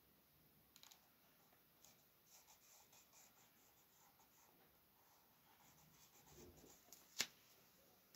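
Faint scratching of strokes drawn on paper, in short runs, then one sharp click about seven seconds in, the loudest sound.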